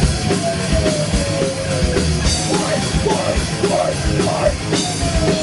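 Live rock band playing a heavily distorted, heavy song: distorted guitars over a driving drum kit. A sliding note falls in pitch twice.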